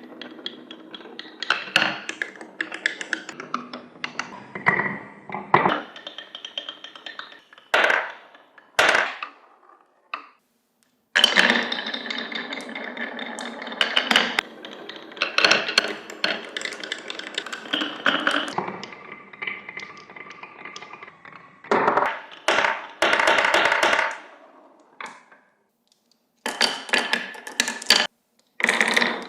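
Marbles rolling along wooden marble-run tracks, a rolling rumble with a steady ringing tone, broken by many sharp wooden clacks and knocks as they drop and strike the pieces. The run stops briefly twice, then the rolling and clacking start again.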